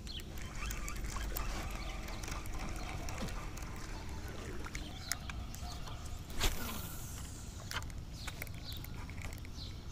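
Spinning rod and reel handled through a cast and retrieve: scattered light clicks and ticks over a low rumble, with one sharp click about six and a half seconds in.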